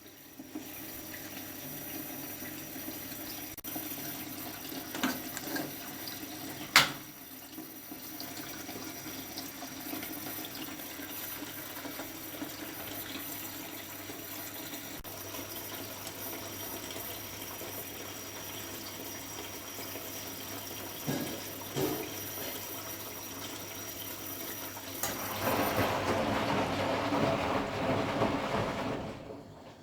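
Candy Formula Inox P 7.71X washing machine taking in water early in a Cottons 40°C cycle: a steady rush of water into the drum, with a sharp click about seven seconds in. Near the end the flow grows louder for a few seconds, then stops suddenly.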